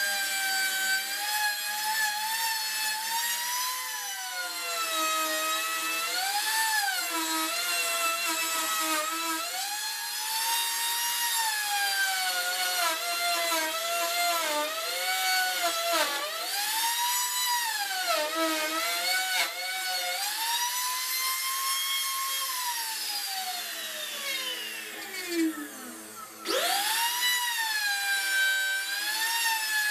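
Compact trim router running while routing plywood: a high whine whose pitch dips and recovers again and again as the bit takes load in the cut. Near the end the motor slows in a long falling tone, then quickly speeds back up to full whine.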